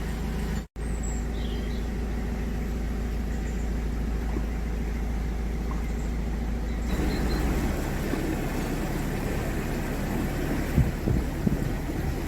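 Narrowboat's diesel engine idling steadily, cut off for a split second about a second in; from about halfway the sound turns rougher and noisier.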